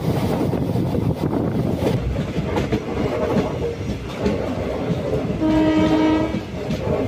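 Passenger express train running, heard from its own coach: a steady rumble with wheels clacking over the rail joints. About five and a half seconds in, a train horn sounds one blast of about a second.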